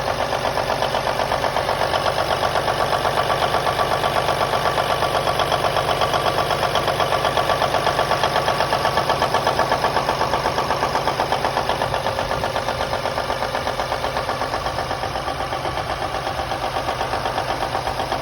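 Cummins N14 inline-six diesel truck engine idling steadily with an even, rapid pulse, running on its newly replaced fuel pump.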